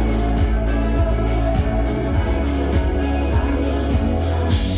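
Live band playing an instrumental passage: bass, guitar and keyboard over a steady drum beat, heard through the room.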